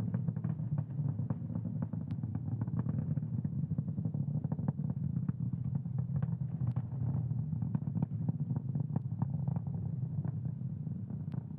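The nine Merlin 1D engines of a Falcon 9 first stage burning through ascent shortly after max Q, heard on the rocket's onboard camera audio: a steady low rumble with frequent crackles.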